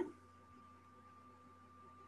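Quiet pause on a video-call line: only a faint steady hum and hiss, with a thin steady tone running through it.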